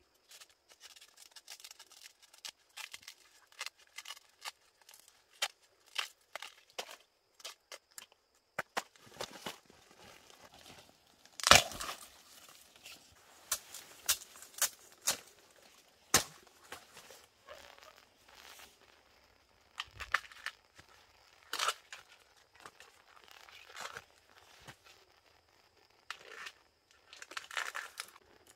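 Bamboo shoots being husked by hand and machete: irregular tearing and crackling of the sheaths, with sharp snaps and knocks, the loudest about eleven and a half seconds in.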